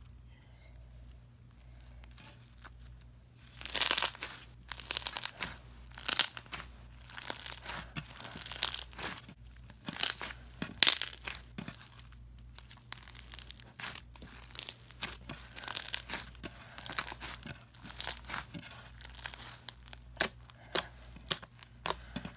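Foam-bead slime (glue slime packed with foam beads) being stretched, squeezed and poked by hand, crackling and crunching in irregular bursts as the beads pop and the slime tears. It starts about three and a half seconds in, after a low hum.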